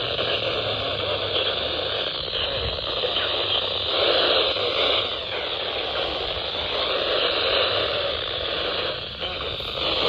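Weather radio receiver putting out a steady hiss of static with no broadcast voice audible.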